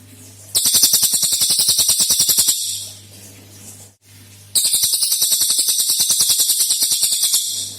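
A cililin songbird singing two long, very fast high trills of repeated notes, each lasting two to three seconds. This is the rapid-fire 'tembakan' burst song prized in trained songbirds. A faint steady low hum runs underneath.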